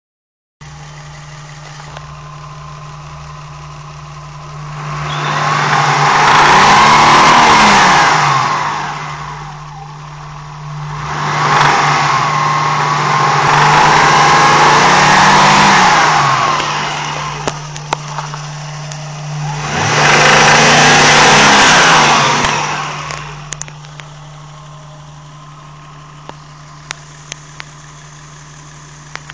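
Vehicle engine idling and revved up and back down three times, each rev a few seconds long, as a recording of a rattle. A few light clicks follow after the revs.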